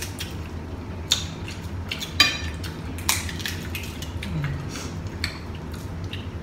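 Boiled shrimp and crab shells being peeled and cracked by hand: scattered crisp clicks and cracks, the sharpest about one, two and three seconds in.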